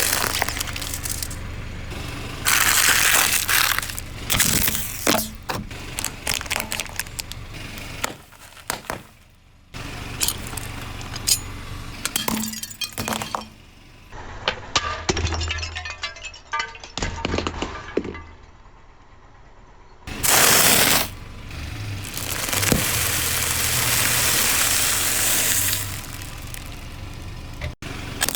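A car's tyres rolling over and crushing brittle objects, heard as a string of cracks, crunches and snapping breaks over the low rumble of the car. The sequence changes several times, with louder stretches of tyre and crushing noise between runs of sharp clicks.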